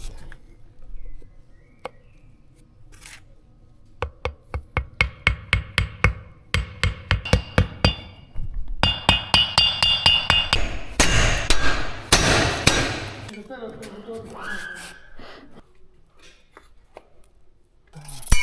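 Hand-tool work on metal: a run of quick, even knocks, about five a second, for some four seconds, followed by a brighter ringing clatter and a harsh rasping noise.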